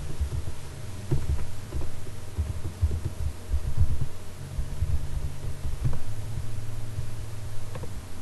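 Low steady hum with irregular dull thumps and faint clicks, typical of keyboard typing picked up by a computer's microphone.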